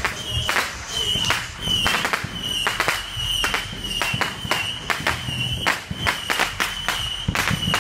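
Fireworks going off in a rapid, uneven string of sharp pops and bangs, about three a second: a barrage of consumer fireworks.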